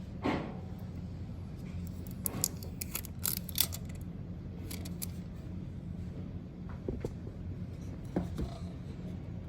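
Light clicks and rattles of small parts being handled, several in quick succession in the middle and a few single ones near the end, over a steady low hum.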